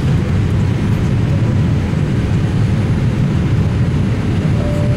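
Steady roar of engine and airflow noise inside the cabin of a Boeing 787-8 airliner.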